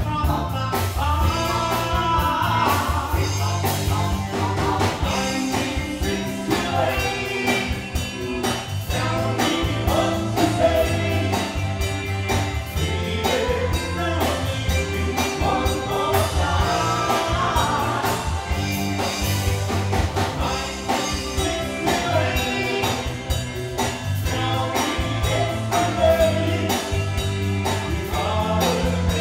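Live band playing a song, with several singers singing into microphones over drums, electric guitar and keyboard.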